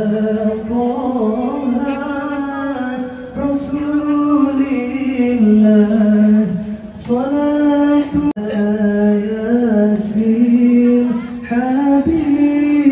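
A man singing into a microphone in long, drawn-out phrases, the notes held and sliding between pitches, with only short breaks for breath.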